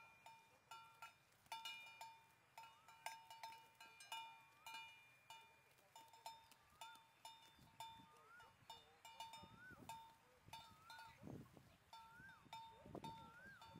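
Faint, irregular clanking of bells worn by grazing cattle. From about halfway in, a short rising-and-falling whistled call repeats roughly once a second.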